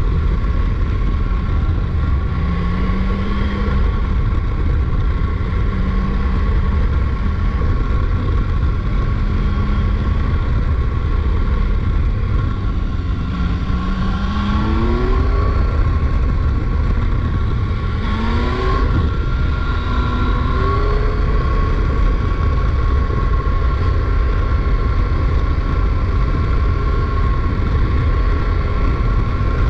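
Motorcycle riding at speed, heard from a camera on the bike and played back at double speed: a steady low rush of wind and engine, with a few rising engine-pitch glides in the middle as the revs climb or another motorcycle passes.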